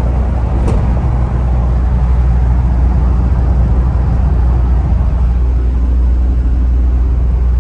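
Steady cabin noise of a 1996 Mitsubishi Challenger cruising at highway speed: the 2.8 L 4M40 turbo-diesel droning under a deep low rumble of road and tyre noise.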